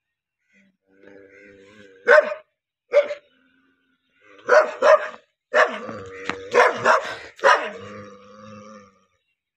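A dog barking aggressively, about eight sharp barks beginning around two seconds in, with low growling between them.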